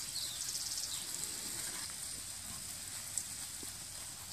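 Water from a garden hose spray nozzle pattering onto coarse composted cattle manure in a planter, a steady rain-like hiss, wetting the compost so it settles and compacts. A bird chirps briefly near the start.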